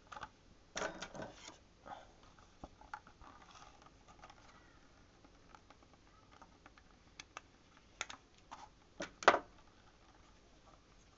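Scattered small clicks and light knocks of a small carburettor and hand tools being handled, with a cluster of rattling about a second in and a sharper knock about nine seconds in.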